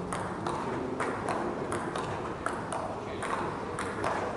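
Table tennis rally: the ball clicking off the rackets and bouncing on the table, about two to three sharp clicks a second.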